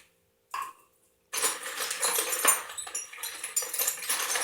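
Small pieces of scrap copper and dross clattering and clinking as they are packed into a crucible, a busy jangle that starts about a second in after a short clink.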